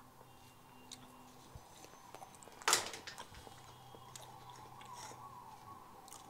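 Soft handling sounds as bread and banana slices are put together on a plate: a few faint clicks and one brief, louder scrape about two and a half seconds in, over a low steady hum.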